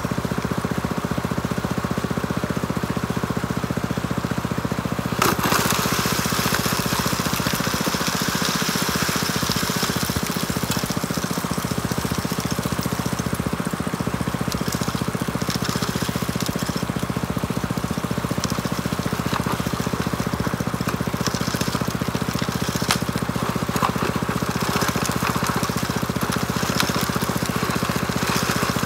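Small gas-engine water pump running steadily, feeding a high banker. About five seconds in, a gritty rattle and rushing hiss of gravel and water washing over the grizzly bars and sluice joins in and carries on.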